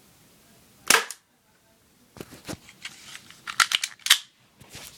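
UHC M9 Beretta airsoft pistol being fired in a shooting test: a series of sharp clicks and snaps. The loudest comes about a second in and two more come close together near the end, with smaller clicks between them.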